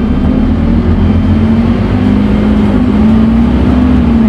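Scania N230UD Omnicity bus's diesel engine running under power, its low drone wavering slightly in pitch and growing a little louder.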